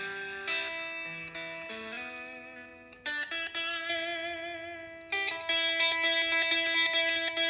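Electric guitar played clean, with single notes and chords left ringing and slowly dying away, changing about three seconds in and again about five seconds in. In the last two seconds it is louder, the notes picked rapidly over and over.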